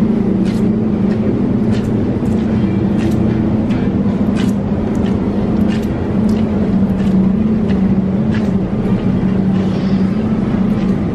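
Steady low hum of supermarket refrigerated display cases, with scattered light clicks and taps over it.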